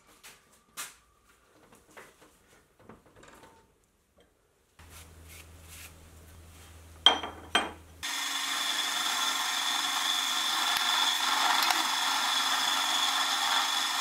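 Sieg X2.7L mini mill's end mill cutting across the end of a hot rolled steel bar to square it: a steady, loud cutting noise with a high whine over it, starting about halfway in. Before it, a few faint clicks, then a low hum and two sharp clicks.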